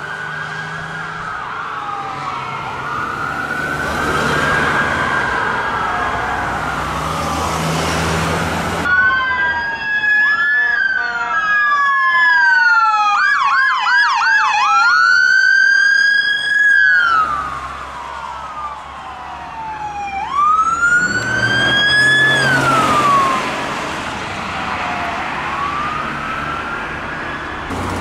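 Electronic sirens of police and emergency vehicles driving past: slow wails rising and falling, with a fast yelp about halfway through. Engine and tyre noise of the passing vehicles runs underneath, and the sound changes abruptly twice where the footage is cut.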